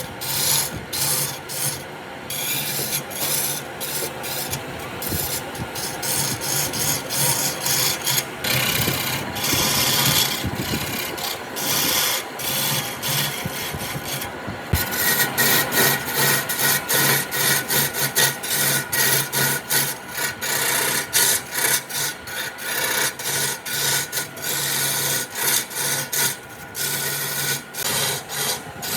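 Wood being rasped or filed by hand: repeated scraping, rubbing strokes, falling into a fairly even rhythm of about two strokes a second in the second half.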